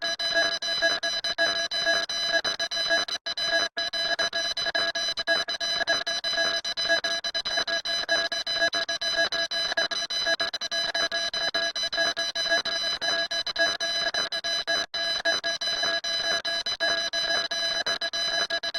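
A steady, rapidly fluttering electronic alarm-like tone that sounds at several fixed pitches at once, broken by brief gaps about three seconds in and again near fifteen seconds.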